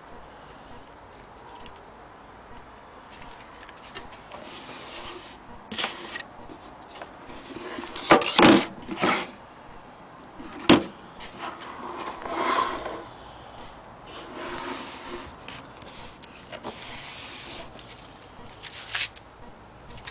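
Small wooden drawer being handled: scattered rubbing and sliding noises with a few sharp knocks, the loudest about halfway through.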